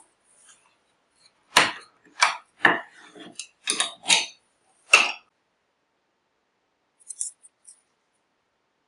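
Paracord being pulled and handled on a wooden paracord jig: about six short, sharp scraping clatters in quick succession, then a few faint rustles near the end.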